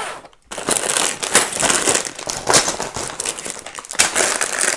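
Plastic bags of building-brick parts crinkling and rustling as they are handled and laid out on a table. The crackle starts about half a second in.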